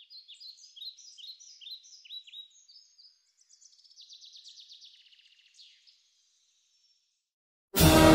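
A songbird singing: a string of short falling chirps, then a fast trill, stopping about six seconds in. Near the end an orchestra comes in suddenly.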